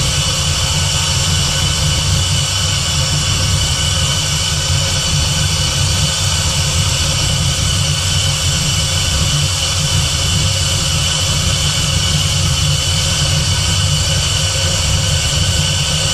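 Supercharged 4.6-litre DOHC V8 of a Terminator Cobra engine swap idling steadily, run up to temperature while air is burped out of its cooling system.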